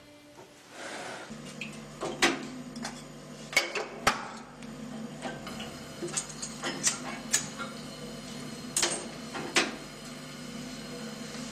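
Sharp, irregular metallic clicks and clinks from a metal kettle on a gas stove's grate, over a low steady hum that starts about a second in.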